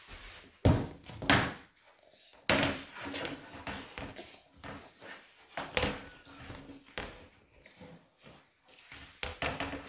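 Irregular knocks and thumps from a man doing back-extension lifts on a rubber floor mat, pressing a foam roller against the wall. The two loudest come close together about a second in, with fainter ones spread through the rest.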